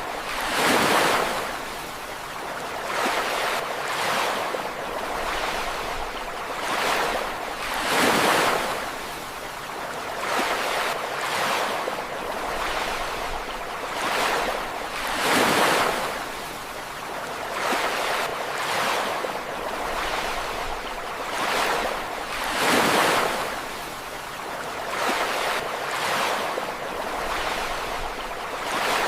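Ocean waves breaking and washing up on a shore, a larger wave surging about every seven seconds with smaller swells between.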